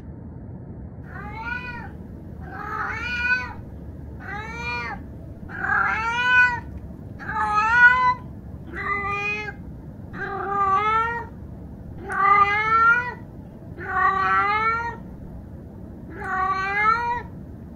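A cat meowing over and over: about ten meows, roughly one every second and a half, each rising and then falling in pitch.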